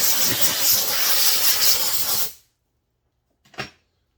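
Aerosol can of brake cleaner spraying in a long steady hiss, degreasing a chainsaw recoil starter spring, then cutting off abruptly about two seconds in. A single short knock follows about a second later.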